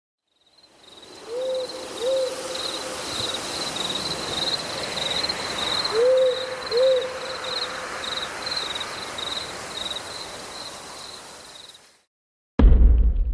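Night ambience: an owl hooting in two pairs of short hoots over a steady pulsing insect trill and a soft hiss, fading in at the start and cutting off near the end. A sudden loud noise starts just before the end.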